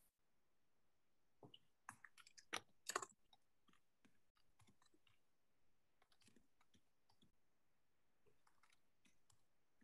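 Near silence, with a brief cluster of faint clicks between about one and a half and three seconds in, then only scattered very faint ticks.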